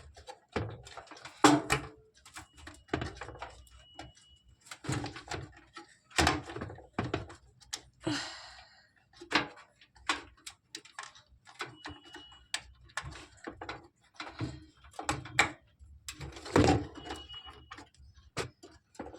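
Irregular clicks and knocks of hands pressing a RAM stick into a desktop motherboard slot and working its retaining clips, with a brief scraping rustle about eight seconds in.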